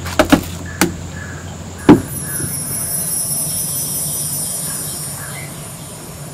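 Rural outdoor ambience: a few sharp knocks, the loudest about two seconds in, then a steady high insect drone sets in and carries on over a low steady hum.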